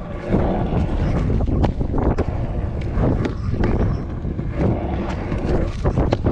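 Stunt scooter wheels rolling over wet paving slabs and tarmac, with wind rumbling on the microphone and repeated sharp clacks as the wheels and deck cross slab joints and kerbs.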